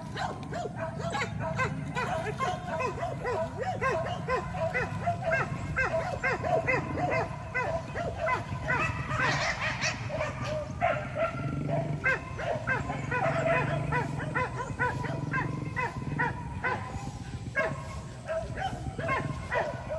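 A pack of hunting dogs barking and yelping rapidly and continuously, several barks a second, as they bay at a wild boar.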